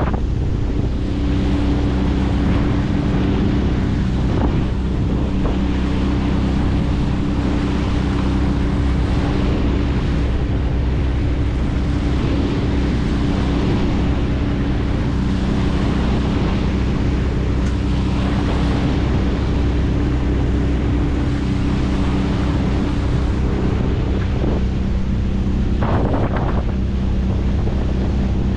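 25 hp Mercury four-stroke outboard motor running steadily under way, with water rushing past the hull and wind buffeting the microphone. A brief louder rush comes near the end.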